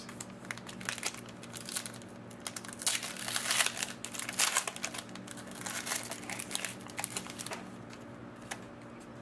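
Crinkling and tearing of foil trading-card pack wrappers, with the cards being handled, in an irregular run of crackles that is busiest a few seconds in.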